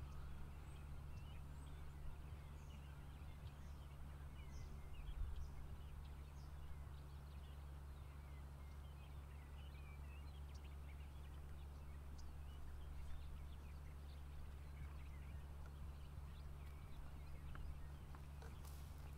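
Faint open-air ambience: scattered short bird chirps over a steady low hum.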